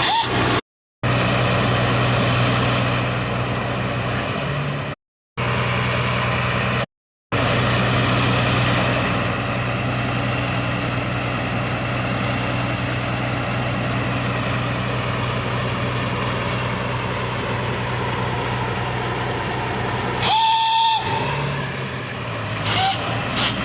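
High-pressure water jetting machine running steadily: a constant mechanical hum with a hiss over it, cut off briefly a few times. About twenty seconds in, a brief louder burst with a steady horn-like tone sounds for about a second, and a shorter tone follows near the end.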